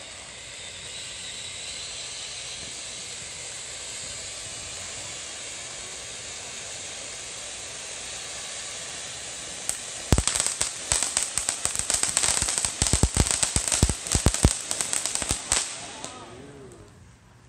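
Ground fountain firework spraying sparks: a steady hiss, then for about five seconds a loud, dense crackle of rapid sharp pops, which dies away just before the end.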